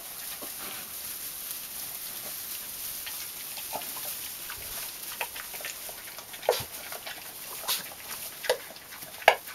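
Pigs, a sow and her day-old piglets, giving short grunts and squeaks, a few scattered over the second half, the loudest one near the end.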